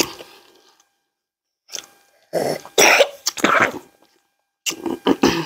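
A person coughing several times in short harsh bursts, with some throat clearing: a cluster about two to four seconds in and another near the end.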